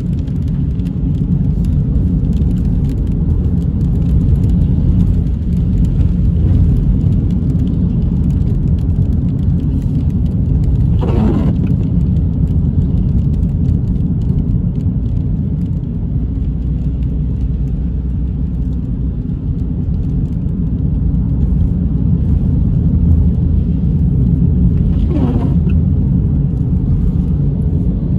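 Steady low rumble of a car driving, heard from inside the cabin: road and engine noise. Twice, about eleven seconds in and again near the end, a brief whoosh rises and falls.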